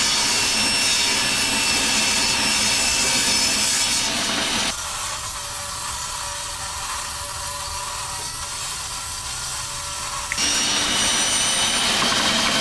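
A 10-inch benchtop table saw running and ripping half-inch wood along its fence, a steady whining cut. About five seconds in the sound thins and drops a little for several seconds, then the full cutting sound returns near the end and stops abruptly.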